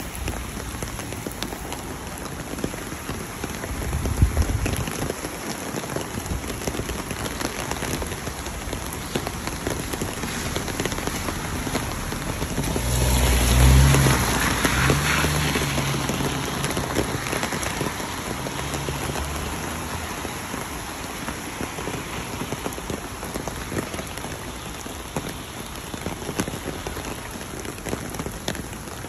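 Steady rain falling and pattering. A low rumble swells and fades about halfway through.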